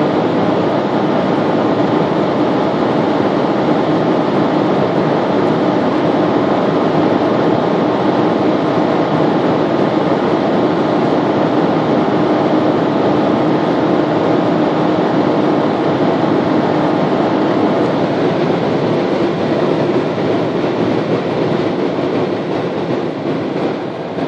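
Cabin sound of a Dodge Charger V6 running flat out near its 240 km/h top speed: a loud, steady rush of wind and road noise over the engine's drone at high revs. Over the last few seconds it eases off as the car slows and the revs fall.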